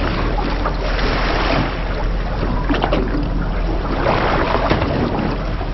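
Steady noise of a small boat at sea: the motor hums low and even under a wash of wind and choppy water.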